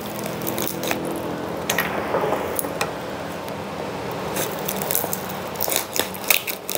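Cardboard shipping box being pulled open by hand: cardboard and packing paper rustling and crinkling, with scattered short crackles and scrapes.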